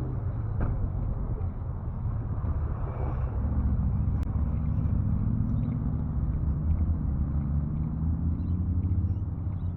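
Motor vehicle engine running, a low hum that grows louder about three and a half seconds in and stays up.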